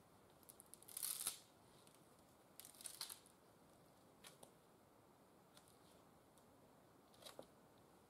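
Faint crackling rustles of dry leaf litter and thin sticks being disturbed as long wooden poles are handled and shifted on the woodland floor, in a few short bursts, the loudest about a second in and another around three seconds.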